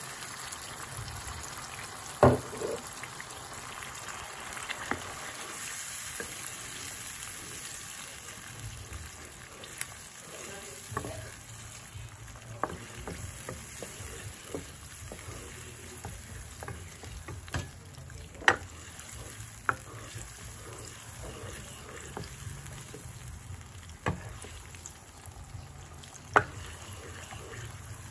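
Tomato bolognese sauce sizzling and bubbling in a nonstick wok as it is stirred with a spatula. A few sharp clicks and knocks come from the spatula striking the pan, loudest about two seconds in, past the middle and near the end.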